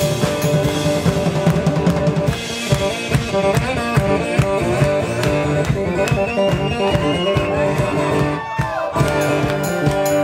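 Two-piece band playing live: acoustic guitar and drum kit, the drums keeping up a busy beat under the guitar.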